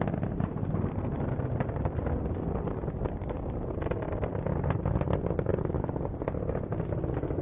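Atlas V rocket's booster engine climbing away: a steady, rumbling roar with scattered crackles.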